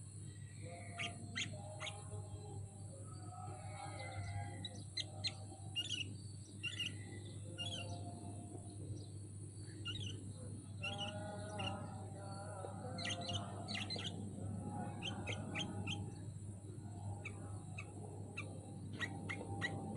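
Sooty-headed bulbul singing: a run of short, bubbly chirps and warbled phrases with frequent brief pauses, over a steady low hum.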